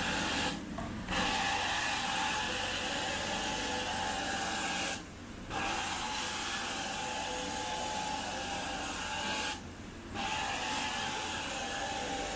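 Carpet extraction wand sucking water and air up through its head as it is worked across the carpet in a rinse pass: a steady loud hiss that drops away briefly three times, about every four and a half seconds.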